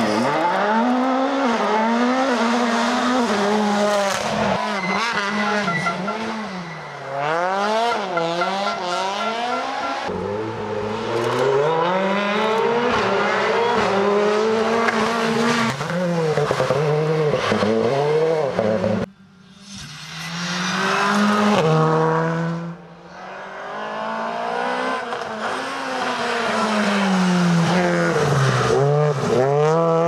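Rally cars, among them a Toyota Yaris WRC, passing one after another through tight bends. Their engines rev up and drop back again and again through gear changes and lifts, with abrupt cuts between passes.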